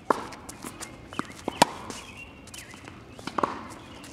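Tennis ball being struck by rackets and bouncing on a hard court during a baseline rally: several sharp pops, the loudest about one and a half seconds in.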